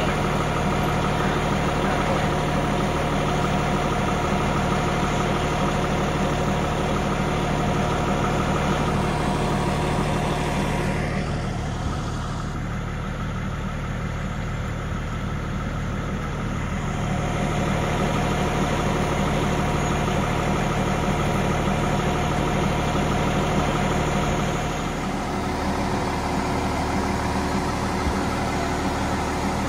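Fire truck's diesel engine idling, a steady hum; the sound dips and changes about a third of the way in and shifts again near the end.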